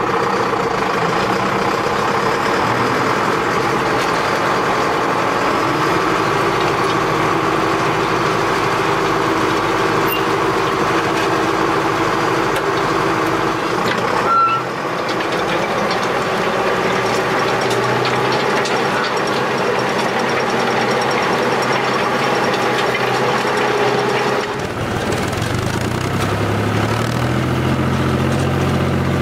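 Tractor diesel engine running steadily under load in the field, working a plough and a power harrow behind a Zetor Proxima 7441, then a seed drill behind an IHC tractor. The engine sound changes abruptly about halfway and again near the end, where a lower, steadier engine note takes over.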